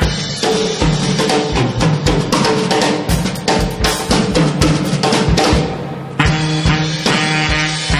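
Drum kit played busily in a live jazz setting: rapid snare and cymbal strokes with bass drum kicks, over held pitched notes. A cymbal wash swells just before six seconds in and breaks into a loud accented hit.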